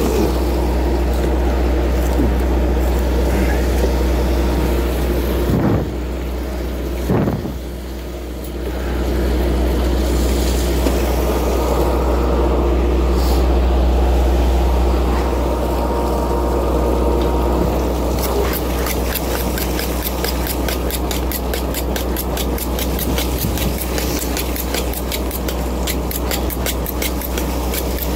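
Fishing trawler's engine running steadily with a deep hum. A fast, regular ticking joins in about two-thirds of the way through.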